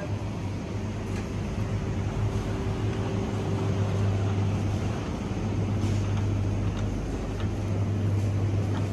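Steady low hum of a large supermarket's background machinery, such as ventilation and refrigerated display cases, with a few faint clicks and rattles.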